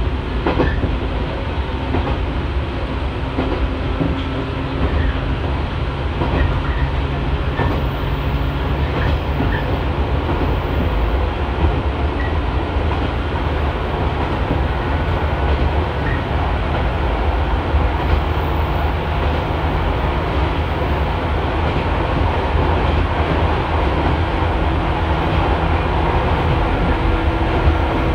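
JNR 115 series electric train running along the line, heard from inside the car: a steady rumble of wheels on rail and running gear, with a few rail clicks about a second in.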